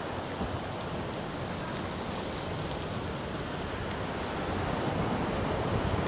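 Steady rushing noise of Pacific surf mixed with wind, growing a little louder about four and a half seconds in.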